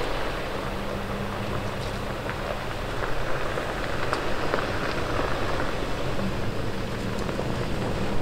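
Nissan Frontier Pro-4X's V6 engine running low as the pickup rolls slowly along a gravel road, with a steady crackle of tyres on gravel. The engine hum fades in the middle and grows stronger again near the end as the truck draws closer.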